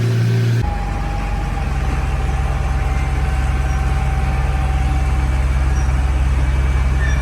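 Steady low mechanical drone of workshop machinery running, with a faint steady whine above it; the drone's character changes abruptly under a second in.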